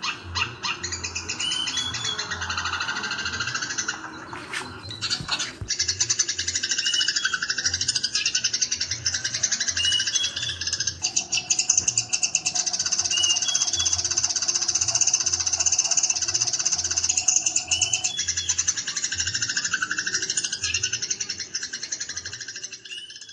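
Eurasian tree sparrows chattering in fast, dense chirps, the squabbling 'fighting' chatter, mixed with the song of a cucak jenggot (grey-cheeked bulbul). A long steady note runs through the middle, and the birdsong fades out near the end.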